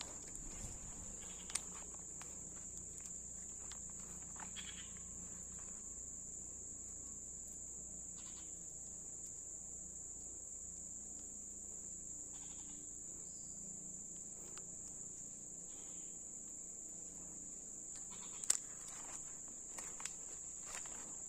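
Insects shrilling in a steady, unbroken high drone, the constant background of a tropical swamp forest, broken by a few sharp snaps and rustles, the loudest about 18 seconds in.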